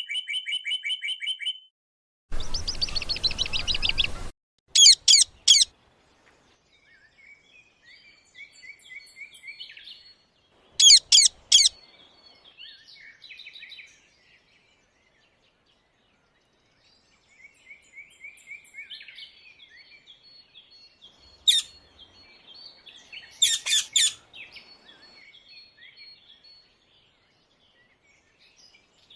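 Rose-ringed parakeets (Indian ringneck parrots) calling: loud, shrill screeching calls in short bouts, with softer chattering in between.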